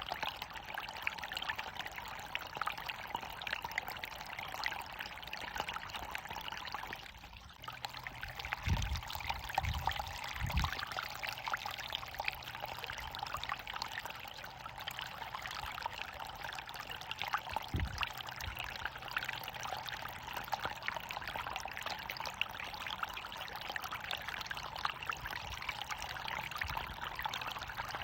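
Running water pouring and trickling in a steady flow. The flow dips for a moment about seven seconds in, and a few soft low thumps come through: three close together from about nine to eleven seconds in and one near eighteen seconds.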